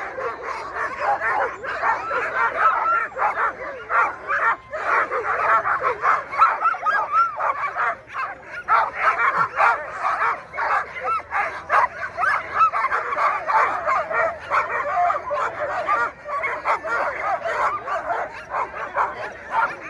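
A chorus of many sled dogs barking, yipping and whining at once, without a break: harnessed teams excited as they wait to run.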